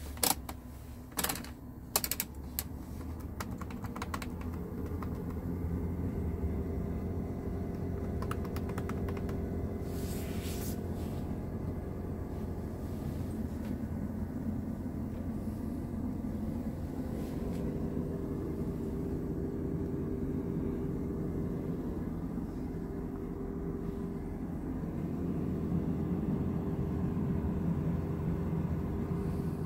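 A few sharp clicks of the dashboard climate-control knobs being turned, then a steady low hum in the cab of a 2008 Scania R truck with its diesel engine idling.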